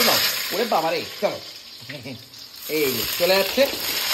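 Hot oil in a steel kadai sizzling and spitting as cut potatoes, green banana and taro are tipped in from a plastic colander onto a tempering of cumin, dried chilli and bay leaf. A voice sounds over it twice.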